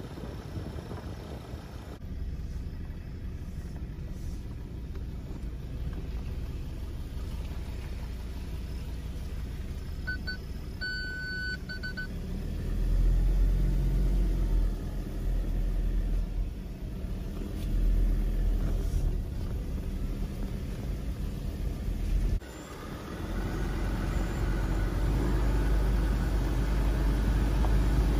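Car driving along a road: a steady low rumble of engine and tyres with wind on the microphone, growing louder about halfway through. A brief high-pitched tone sounds a little before the middle.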